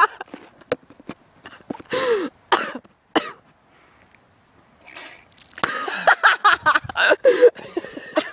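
A girl coughing and clearing her throat in short, harsh bursts, choking on the dry cinnamon powder from the cinnamon challenge. The coughs ease for a moment about halfway through, then come back in a quick run near the end.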